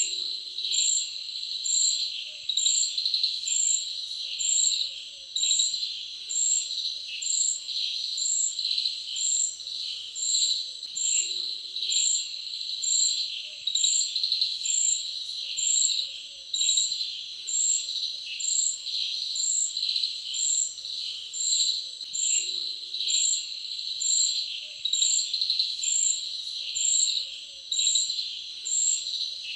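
Insects chirping in chorus: a steady high trill, with a sharp, higher chirp repeating about once a second.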